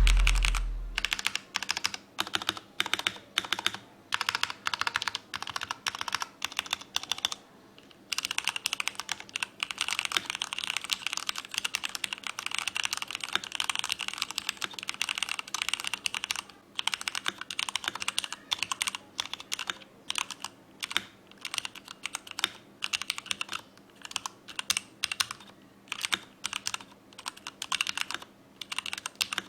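Typing on a Cherry MX 8.2 mechanical keyboard: irregular runs of keystrokes, quickening into fast continuous typing in the middle, with two brief pauses.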